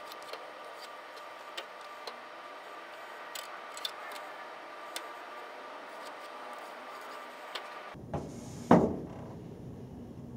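Light scattered ticks and taps of hands and a metal rule handled on pool table cloth, over a steady hum with a faint steady tone. Near the end the background changes and one sharp, loud thump sounds.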